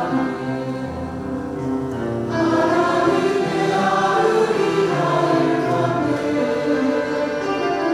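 Church choir singing a sacred anthem in parts, with held notes that swell louder a little over two seconds in.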